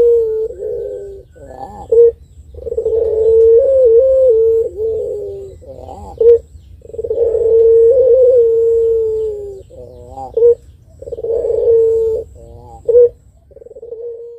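A puter pelung, a long-voiced breed of domestic collared dove, cooing in long drawn-out calls, each followed by a short, loud, wavering note. About four calls follow one another with brief pauses between.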